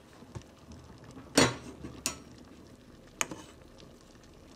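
A few sharp clinks and knocks of kitchenware against a stainless steel soup pot, the loudest about a second and a half in.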